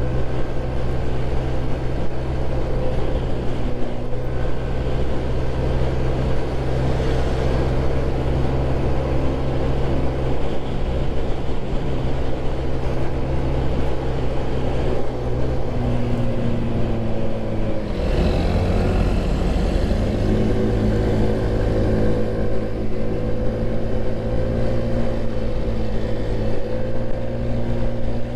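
Motor scooter riding through city traffic, its engine running steadily under road and wind noise, heard from the rider's seat. The engine note dips and shifts briefly about 18 seconds in.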